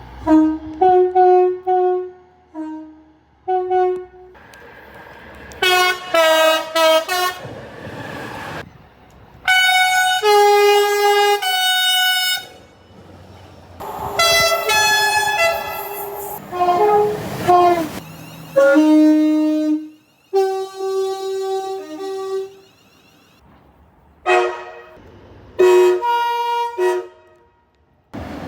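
Train horns sounding in a run of separate clips: a few short toots, then a quick string of blasts, then longer held blasts at several different pitches. One blast near the middle slides down in pitch.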